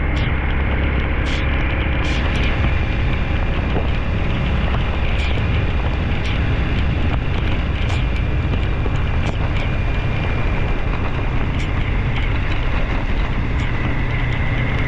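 Motorcycle riding in the rain: steady wind noise buffeting the microphone over the running engine, with scattered sharp taps of raindrops striking the camera.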